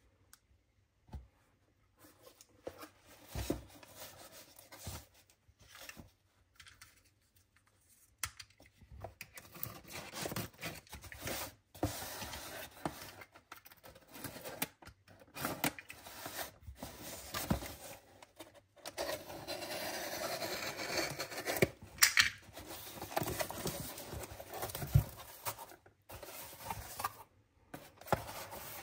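Product packaging being opened and handled: irregular rustling, scraping and tearing with small taps and clicks, sparse at first and busier from about eight seconds in.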